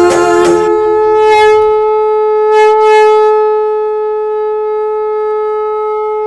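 Conch shell (shankh) blown in one long, steady note, the traditional sound that closes an aarti. The sung music with its percussion stops within the first second as the note takes over.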